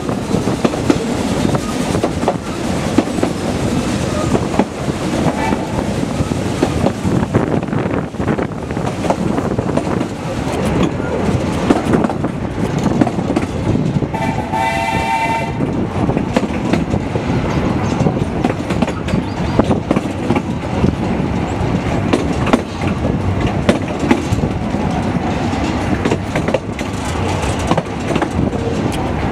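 Narrow-gauge train heard from inside a moving carriage: a steady rumble with wheels clicking over the rail joints. Midway, the steam locomotive's whistle sounds once, for about a second and a half.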